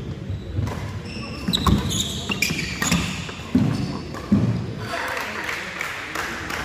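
Badminton doubles rally on a wooden court: heavy footfalls thudding on the floor, shoes squeaking in short high chirps, and sharp racket hits on the shuttlecock, mostly in the first four seconds.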